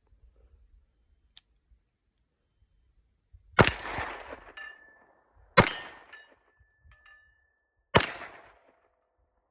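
Three shots from a 9mm 1911-style pistol, about two seconds apart, each trailing off in echo. A thin metallic ring hangs on briefly after the first two.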